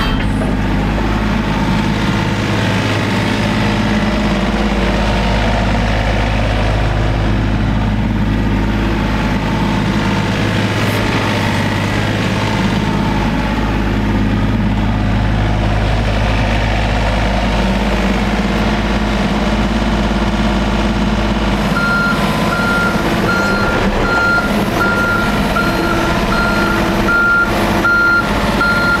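John Deere 35D mini excavator's diesel engine running under load as the boom and bucket are worked through their range to circulate fresh hydraulic oil. About 22 seconds in, the machine's travel alarm starts beeping, about two beeps a second, as it tracks.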